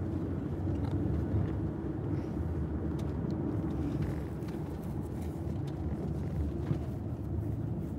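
Steady low rumble of road and engine noise inside a moving car's cabin, with a few faint clicks.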